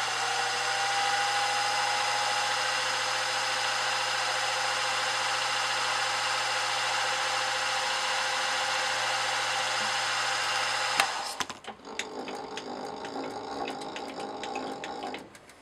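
Milling machine spindle running steadily as it drills a small hole in an aluminium bar, with a low hum and a steady whine. It stops with a click about eleven seconds in, and a stretch of clicking and rattling follows.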